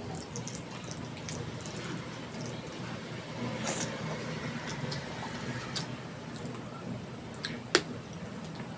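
Wet squishing and smacking of soft khichdi and egg curry being mixed and eaten, with irregular small clicks and one sharper click near the end.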